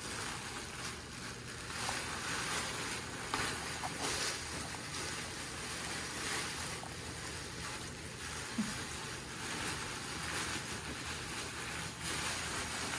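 Petit Basset Griffon Vendéen puppies scuffling with a nylon play tunnel: a steady rustling, rushing noise of fabric being tugged and paws scrabbling on the hard floor, with faint scattered clicks. A short, sharp sound stands out about two-thirds of the way in.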